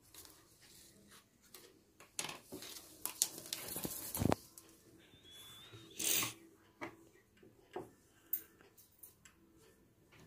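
Cotton cloth rustling and tailor's chalk scraping as fabric pieces are marked and handled on a table: a run of short scrapes and rustles, denser from about two to four seconds in, with a louder rustle about six seconds in.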